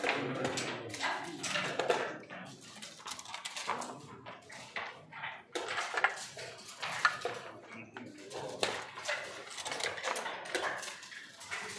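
Backgammon checkers clacking as they are picked up and set down on the board, with dice rolled onto it, in an uneven run of sharp clicks.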